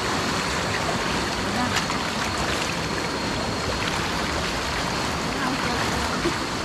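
Stream water flowing, a steady, even rush.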